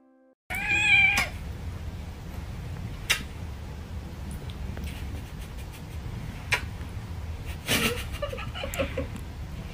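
A grey tabby cat gives one loud, drawn-out meow about half a second in. A steady low rumble and a few sharp clicks follow, with some short, softer sounds around eight seconds in.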